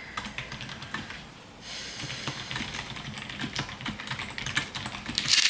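Typing on a computer keyboard: a quick, irregular run of keystrokes, with a short rush of noise near the end.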